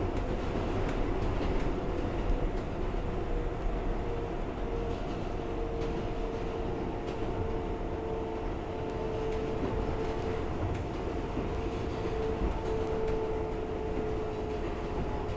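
R142A subway car running at speed, heard from inside the car: a steady rumble of wheels on the rails with a held motor whine that sinks slightly in pitch, and a few scattered clicks.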